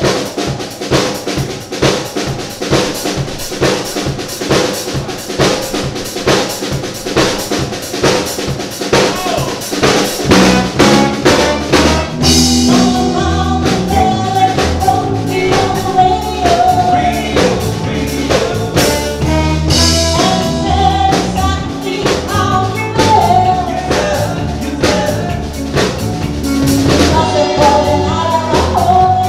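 Woman singing with a live band, drum kit prominent. The drums carry the first several seconds, then the bass and the full band fill in about ten seconds in, with the vocal holding long notes.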